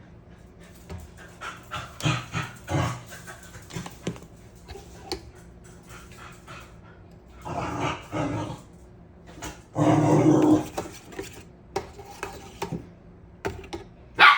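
A dog panting, with a few louder short bursts of breathy noise and scattered small clicks.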